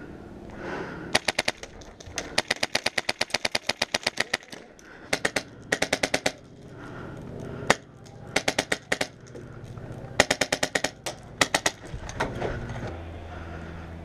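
Airsoft guns firing rapid full-auto bursts in a firefight: about eight strings of fast, evenly spaced shots, some short and some well over a second long, with a lone shot near the middle.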